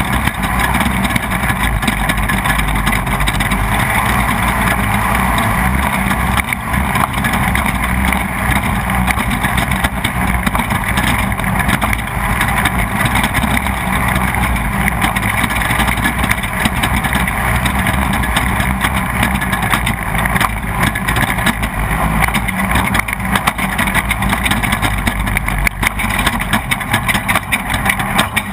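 Off-road race car's engine running hard under load, heard from onboard, with constant rattling and knocks from the vehicle over rough ground.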